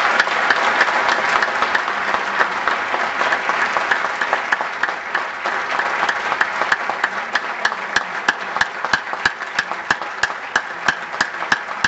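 Audience applauding in a hall: dense clapping that thins in the second half into distinct, evenly spaced claps, about three a second.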